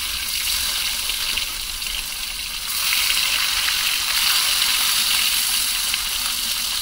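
Fish frying in hot oil in a pan: a steady sizzling hiss that grows a little louder about three seconds in.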